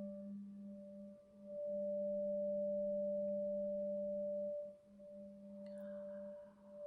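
Singing bowl held in a sustained ring: a low hum with a higher overtone above it, swelling and fading in long waves. Near the end a light strike adds a higher ringing tone.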